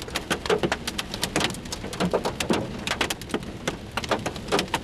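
Hailstones pelting a car's roof and windshield, heard from inside the cabin: a loud, dense, irregular clatter of sharp hits.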